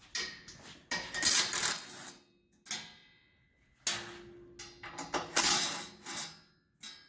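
A 3/8-inch impact wrench hammering hood screws loose, in several short bursts with pauses between them.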